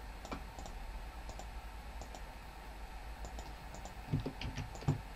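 Quiet computer mouse clicks, a dozen or so scattered irregularly, over a low steady hum.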